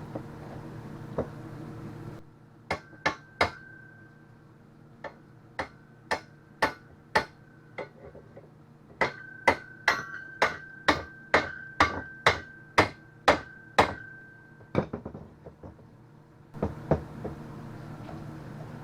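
A hammer striking the rake's metal bar to drive it into the bored hole in the wooden handle: a run of about two dozen sharp blows at roughly two a second, many leaving a brief metallic ring.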